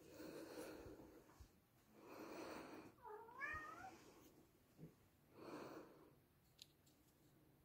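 Faint, soft breathy sounds come in three short swells. About three seconds in there is a brief, high, wavering whimper from a pet animal.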